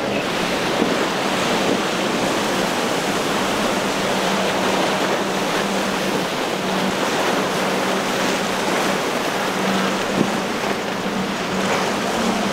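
Choppy inlet surf and wind making a steady rushing wash, with a boat engine's low, steady drone underneath. One brief knock near the end.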